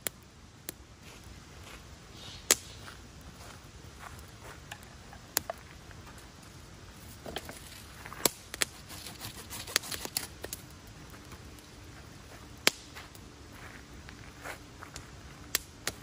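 Wood campfire crackling, with irregular sharp pops: single loud ones about two and a half seconds, eight seconds and twelve and a half seconds in, and a quick run of pops between about eight and ten seconds in.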